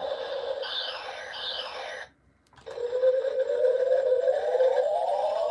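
Buzz Lightyear talking action figure's electronic sound effects through its small built-in speaker: two quick falling laser zaps, a short break about two seconds in, then a rising power-up whine that climbs for about three seconds and cuts off.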